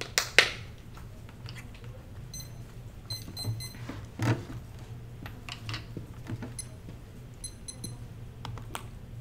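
Short, high electronic beeps in several quick groups, with two sharp clicks about half a second in and a single knock about four seconds in.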